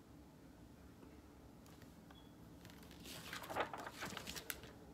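Very quiet room, then about three seconds in a brief, faint rustle of paper as a picture book's page is turned and the book handled.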